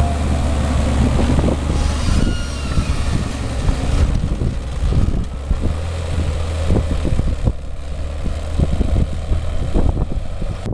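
Fendt 936 Vario tractor's six-cylinder diesel engine running steadily under ploughing load, with wind buffeting the microphone and scattered knocks.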